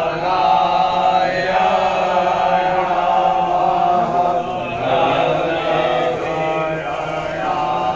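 Many men's voices chanting Hindu mantras together in long held phrases, with short breaks every few seconds.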